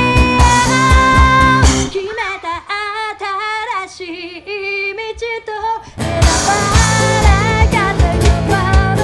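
Pop-rock band playing with a female vocalist singing. About two seconds in, the drums and most of the band drop out, leaving the singing over a low held note. The full band crashes back in about four seconds later.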